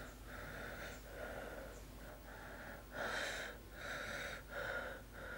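A wounded man breathing quickly and heavily through a cloth held over his mouth, nearly two breaths a second, louder from about three seconds in.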